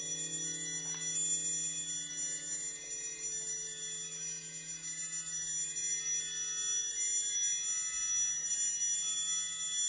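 Chamber orchestra playing a slow passage of long held chords, the low note shifting about seven seconds in.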